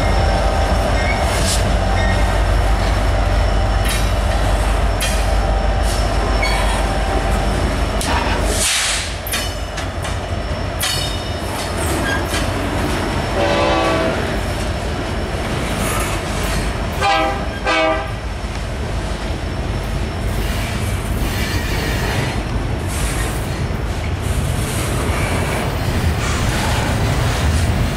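A freight train rolls past close by, its hopper and tank cars' wheels clicking over the rail joints with some flange squeal. The locomotives' deep diesel rumble drops away about 8 s in. Around the middle an oncoming diesel locomotive sounds its horn, one blast and then short blasts a few seconds later.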